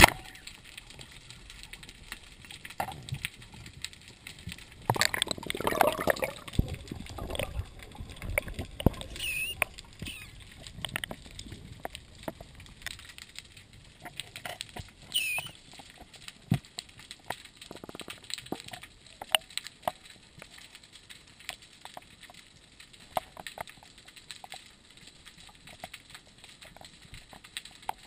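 Underwater sound through a GoPro housing: water sloshing and gurgling, with scattered small clicks and a sharp knock at the very start. A louder bubbling stretch comes about five seconds in and lasts a few seconds.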